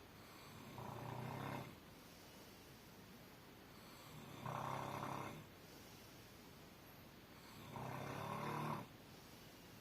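Snoring: three snores about three and a half seconds apart, each lasting about a second, with a low buzzing drone and quiet breathing between them.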